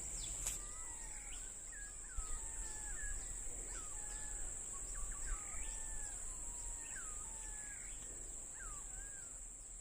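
Birds calling outdoors: many short whistled chirps that slide up and down in pitch, a few each second, over a steady high-pitched insect drone.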